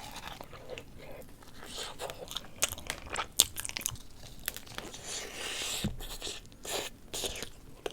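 Close-miked bites into a crunchy dessert with chewing: a run of sharp, irregular crunches, the loudest a little over three seconds in.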